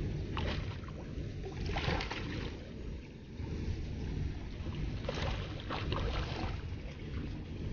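Steady low wind rumble buffeting the microphone, with a few short hissing bursts near the start, about two seconds in, and around five to six seconds in.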